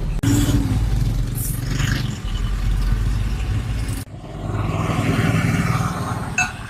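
A heavy vehicle's engine running with some metallic clatter. The sound cuts off sharply about four seconds in, picks up again, then fades near the end.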